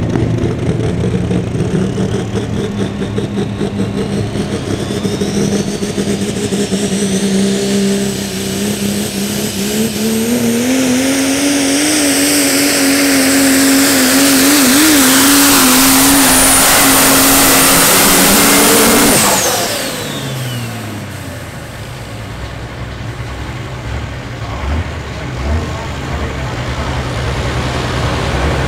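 Super stock diesel pulling truck running hard under load, its engine note climbing about ten seconds in, with a high turbo whistle that rises over the first several seconds and then holds. About nineteen seconds in the throttle closes: the engine drops off and the turbo whistle winds down, leaving a lower, quieter engine sound.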